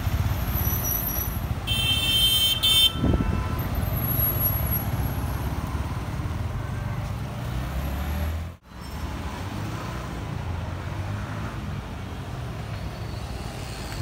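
Yamaha R15 V3's single-cylinder engine running as the motorcycle is ridden off down the street and back, over a low traffic rumble. A vehicle horn toots briefly about two seconds in, and the sound cuts out for a moment a little after halfway.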